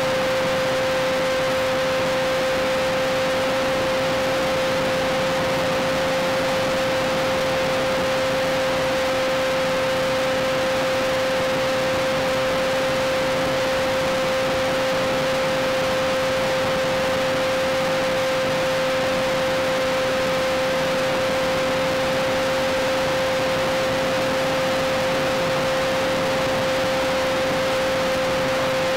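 Sky Surfer pusher glider's HiMax 2000kv electric motor and APC propeller whining at one steady pitch at part throttle, over a steady hiss.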